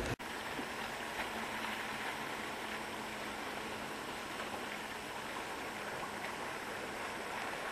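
Steady, even rush of sea water washing gently along the shore, with no rhythm of separate waves.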